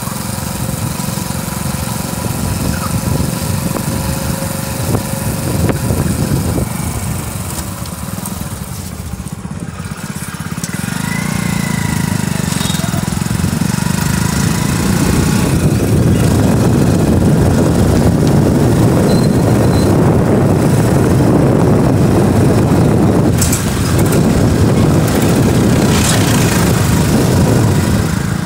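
Steady rushing road and wind noise from riding in a moving vehicle, getting louder about halfway through.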